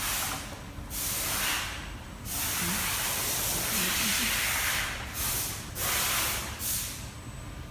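Compressed air hissing from a pneumatic spin friction welding machine, in several bursts of different lengths; the longest lasts about three seconds in the middle, then shorter puffs follow near the end.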